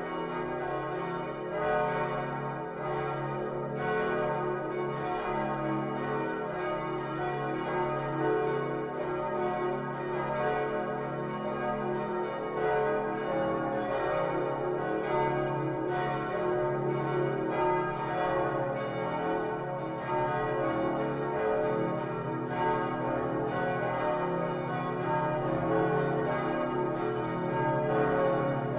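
Full peal of the Utrecht Dom tower's great swinging bells, the 1505 Geert van Wou bells among them, ringing together on straight headstocks. Many strikes overlap in a continuous, dense clangor of deep and higher tones.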